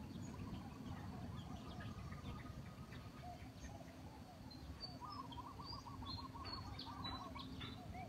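Faint calls of small wild birds: scattered short chirps, and a rapid trill of repeated notes about five seconds in, over a low steady rumble.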